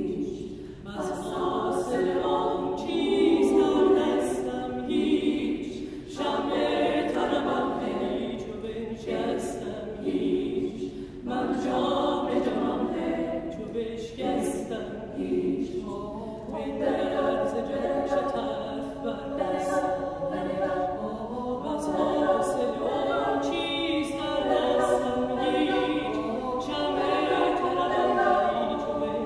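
Chamber choir singing a Persian poem with a woman soloist, in long sung phrases broken by short pauses about 6, 11 and 16 seconds in.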